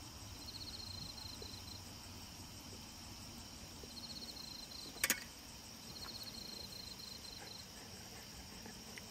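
An insect calling in short trains of rapid, high-pitched pulses, each train about a second long, three times, over a faint steady background. A single sharp click about five seconds in.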